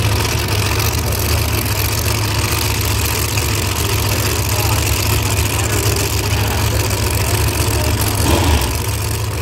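Drag race cars' big engines idling in the lanes with a loud, steady low rumble. The rumble swells briefly about eight seconds in.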